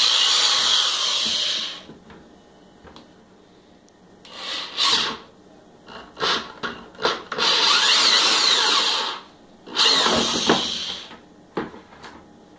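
Power drill with a 1¾-inch hole saw cutting a hole through the side of a plastic 5-gallon food-grade bucket. It runs in about five bursts of one to two seconds, with short pauses between them.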